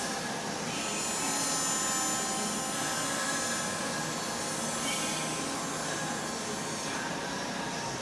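Hydraulic power unit of a CNC press brake running at idle: a steady hum with a few constant whining tones over it.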